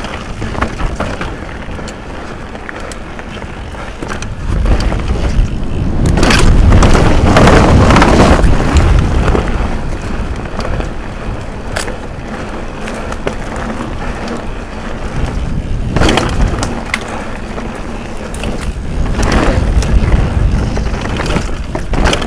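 Propain Rage Carbon downhill mountain bike rolling fast down a rocky dirt trail, heard from a helmet camera: tyres crunching over loose stones, the bike rattling, and wind rushing over the camera. It grows louder about five seconds in as the speed picks up, peaks for a few seconds, then eases.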